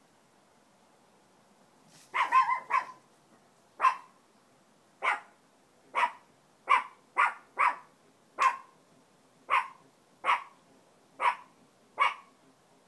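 An animal barking: a string of about a dozen short, sharp barks, starting about two seconds in, a few close together at first and then roughly one a second.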